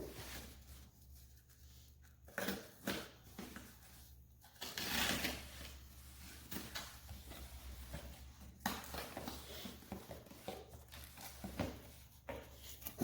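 A cardboard box and its packing being opened and unpacked by hand: scattered taps, knocks and rustles, with a longer scraping rustle about five seconds in.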